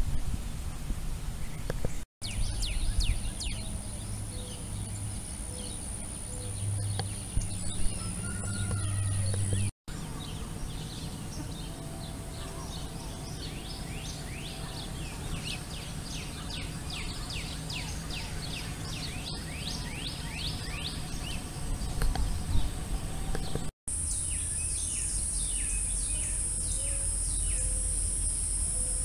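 Outdoor ambience of many birds chirping in quick, short calls, over a steady high-pitched insect-like drone and a low hum, broken by a few abrupt cuts.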